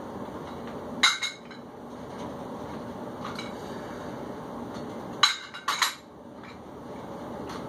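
Metal dumbbells clinking together as they meet at the top of chest flys. There is one ringing clink about a second in, and two more close together around five seconds in.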